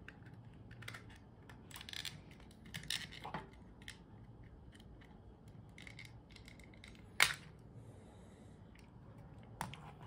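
Small plastic clicks and scrapes as the upper cover of a laser mouse is worked loose and lifted off its base, with one sharp click about seven seconds in.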